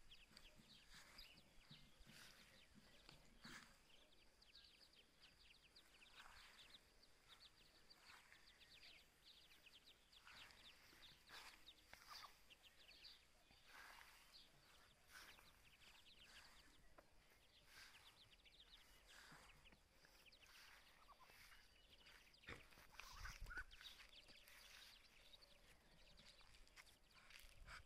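Brood of Muscovy ducklings peeping: a faint, continual stream of short, high chirps from many chicks at once. A brief low rumble comes about two-thirds of the way through.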